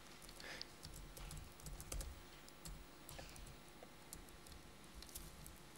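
Typing on a Toshiba laptop keyboard: faint, irregular key clicks with a few soft low bumps.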